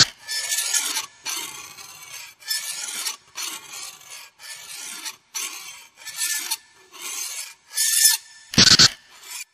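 Repeated rasping, scraping strokes, about one a second with short gaps between them, and a sharper, louder burst near the end before the sound stops.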